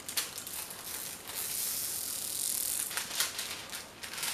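Plastic packaging of a diamond painting kit crinkling as it is handled. There are scattered clicks, and a denser rustle lasts about a second and a half in the middle.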